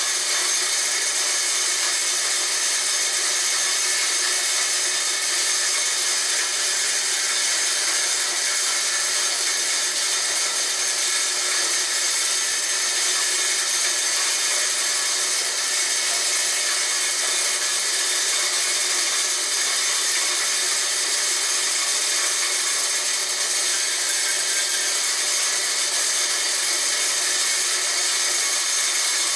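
Homemade corn grinder made from a water pump, its motor running steadily while grinding corn. It is a loud, even, high-pitched machine noise that does not change in level.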